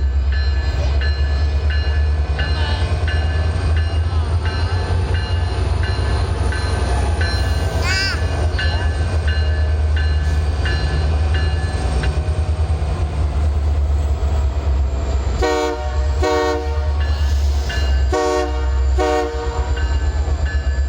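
A freight train rolling by with a deep steady rumble and regular clicking from the wheels. Near the end the locomotive's multi-chime horn sounds four short blasts in two pairs.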